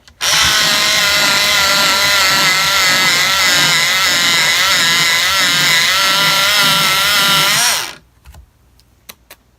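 Electric pencil sharpener running and grinding a pencil for about seven and a half seconds, its motor whine wavering in pitch as the blades cut, then stopping. A few light clicks follow near the end.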